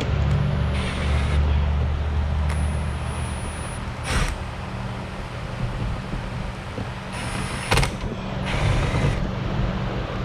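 Power driver running in four short bursts of about a second each, driving in the screws that hold a front splitter to a car bumper, with a few sharp clicks between them over a steady low hum.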